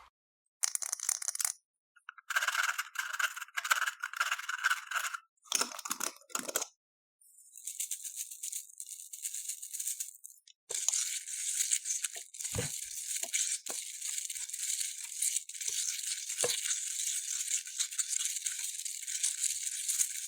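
Foam beads rattling and crackling as they are handled and mixed for crunchy floam slime. The sound comes in several short clips cut apart by dead silence, then runs as a longer unbroken stretch with a few soft knocks.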